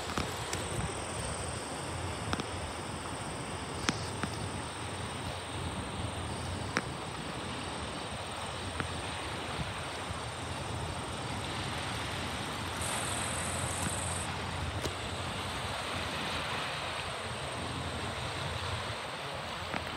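Steady outdoor background noise: an even hiss over a low, engine-like drone, with a few faint clicks.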